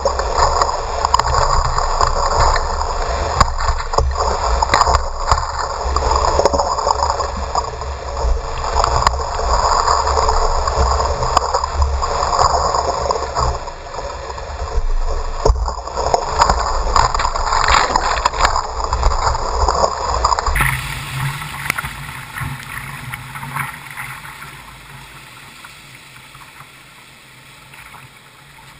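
Whitewater rapids rushing and splashing around a kayak running through them, loud with a low rumble. About two-thirds through, the sound changes suddenly and falls away to quieter flowing water as the kayak comes into calm water.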